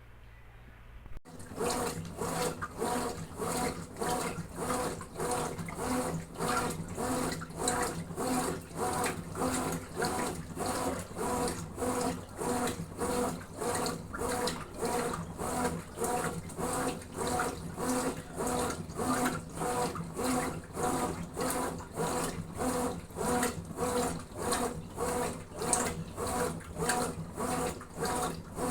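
Consul 9 kg top-loading washing machine's agitator working a load of washing, water sloshing in regular back-and-forth strokes, starting about a second in.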